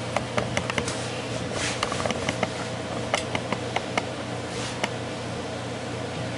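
Steady machine hum in a small room, with many scattered light clicks and taps from a handheld camera being carried and handled.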